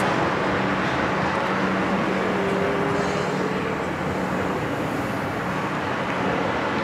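City street traffic noise: passing vehicles' engines and tyres as a steady rumble, with a brief sliding engine tone about two seconds in.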